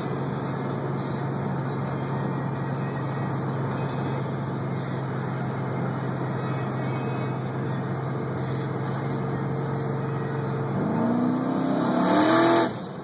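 Twin-turbo, 12:1-compression Ford Mustang engine heard from inside the cabin, holding a steady drone at highway cruise. About eleven seconds in it pulls harder under boost, rising in pitch and getting louder, then drops away abruptly just before the end.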